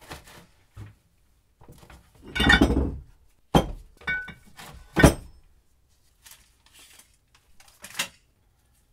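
Heavy metal bench vise parts being put into a plastic tub, a scraping rattle followed by sharp knocks of metal on plastic and metal with a brief ringing clink. The loudest knocks come about three and a half and five seconds in, with a lighter knock near the end.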